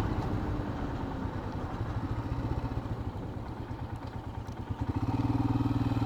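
Royal Enfield Himalayan's single-cylinder engine dropping to low revs off the throttle, its separate firing pulses audible, then picking up and pulling steadily again about five seconds in.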